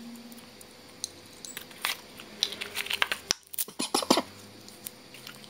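Handling noise from a torch's cardboard packaging and nylon belt pouch: scattered rustles, crinkles and small clicks, busiest and loudest in the second half.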